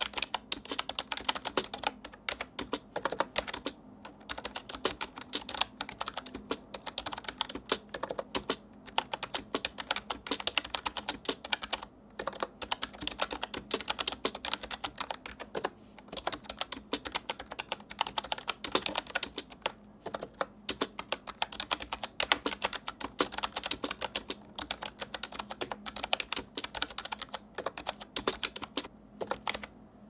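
Fast, continuous typing on an AJAZZ 308i Bluetooth keyboard with round typewriter-style keycaps: a dense run of key clicks broken by a few brief pauses.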